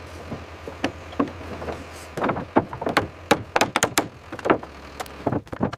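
A rapid, irregular run of sharp knocks and clatters from construction work, coming thicker after about two seconds, over a low steady hum.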